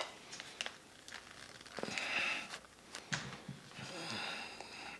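A person's faint breathing through the nose, with a few small handling clicks.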